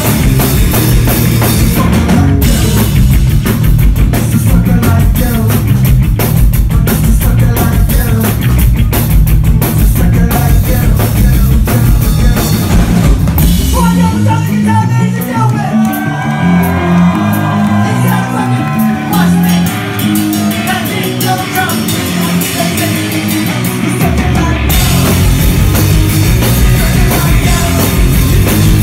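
Live rock band playing loud: electric bass, electric guitar and drum kit, with a sung vocal. About halfway through, the drums drop out, leaving guitar and bass lines for about ten seconds, and the full band comes back in near the end.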